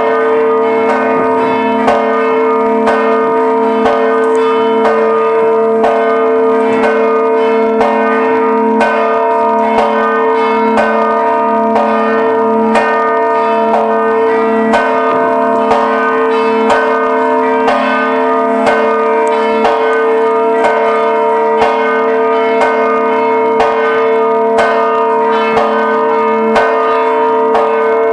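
Church bells of Żabbar parish church pealing for a procession: several bells struck over and over in a steady, quick rhythm, their tones ringing on and overlapping.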